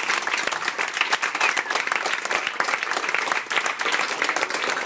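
Small audience applauding: many people clapping hands together in a dense, steady patter.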